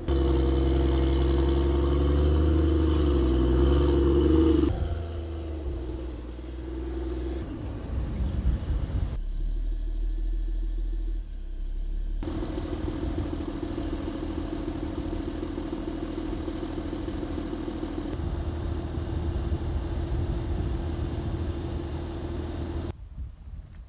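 LAV 6 armoured vehicles' diesel engines running steadily, the engine note changing abruptly twice as the shots change, with a few knocks and some clatter partway through.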